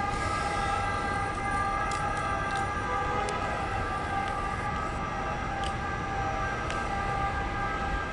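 Trenitalia Frecciarossa 1000 (ETR 400) high-speed train rolling slowly past, giving a steady high whine of several stacked tones over a low rumble, with a few faint clicks.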